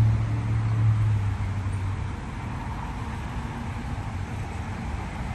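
2016 Acura MDX power tailgate closing: its motor hums steadily for about two seconds and then stops as the tailgate shuts, leaving faint outdoor background noise.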